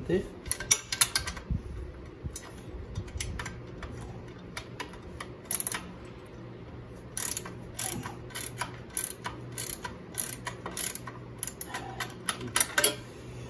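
Hand ratchet with a 13 mm socket clicking in quick runs of pawl ticks as the lower nuts on an ATV's rear axle carrier are worked loose.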